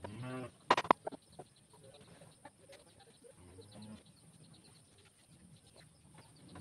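Wooden boards knocking against the chair frame as backrest boards are laid in: a quick cluster of sharp knocks about a second in, then light scattered clatter. A short farm-animal call sounds at the very start.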